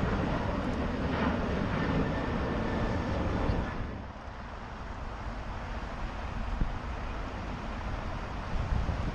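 Distant jet airliner taking off, a steady rumble mixed with road traffic and wind on the microphone. About four seconds in the sound drops abruptly, leaving quieter traffic and wind.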